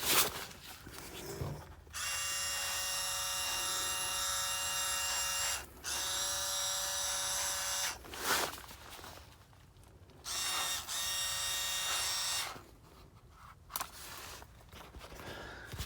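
Small electric pump motor of a sprayer running in three bursts as it sprays ant killer: a steady high whine, the first about three and a half seconds long, then two shorter ones of about two seconds each. Quieter rustling and handling noise sits between the bursts.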